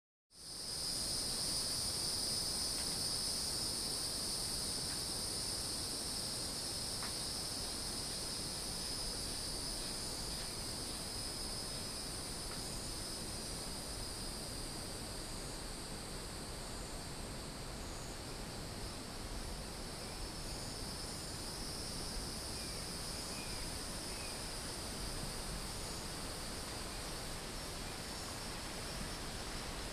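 Insects calling in a steady, high, even drone over a soft outdoor hiss, starting right after a brief moment of silence at the very start.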